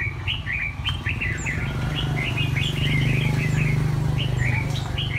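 Small birds chirping in a busy, rapid stream of short calls, over a low steady hum that grows louder in the middle.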